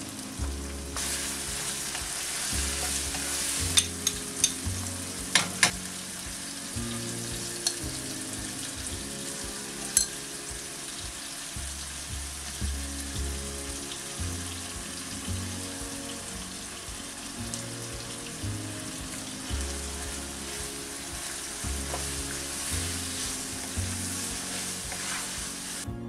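Chicken and chopped tomatoes sizzling steadily in a non-stick wok, the frying starting about a second in as the tomatoes go into the hot pan. A few sharp taps of a wooden spatula against the pan come a few seconds in.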